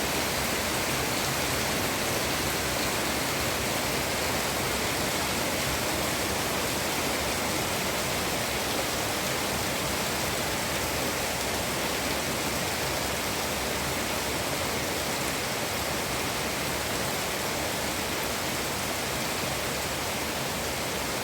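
Water rushing steadily, a constant even hiss with no breaks.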